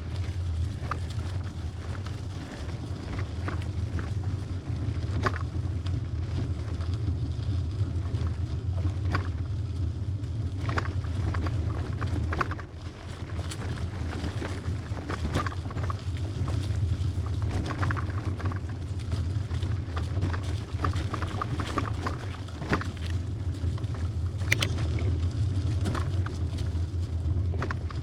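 Trek hybrid bicycle riding over a dirt trail: a steady low rumble of tyres and wind, broken by scattered sharp clicks and rattles as the bike jolts over bumps.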